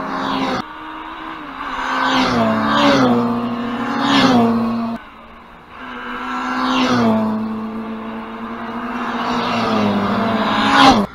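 Classic Mini race cars with A-series four-cylinder engines running hard past one after another, about five going by, each engine note dropping in pitch as it passes. The loudest, closest pass comes near the end.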